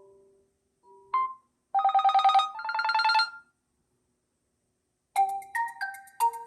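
Oppo A17 stock ringtones. The tail of one fades out. A short note follows, then a fast electronic trill in two bursts, like a phone ringing. After a moment of silence a new ringtone starts about five seconds in: a bright melody of short struck notes over a quick ticking pulse.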